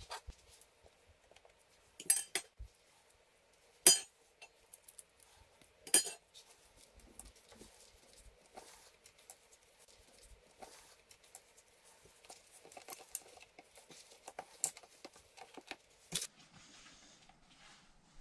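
Kitchen handling sounds while making a Wellington: three sharp metallic clinks about two seconds apart, a utensil against the metal baking sheet, then quieter scattered taps and rustling as puff pastry is folded and pressed by hand.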